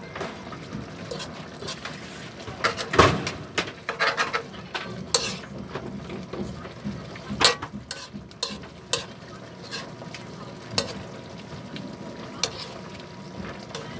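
A utensil knocking and scraping against an aluminium wok as thick escabeche sauce and vegetables are spooned over fried fish, over a low, steady simmering sizzle. Sharp clinks stand out about three, five and seven and a half seconds in.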